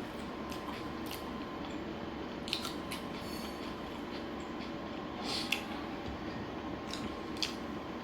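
Someone eating: scattered short chewing and crunching sounds over a steady background hum, the loudest crunch a little past the middle.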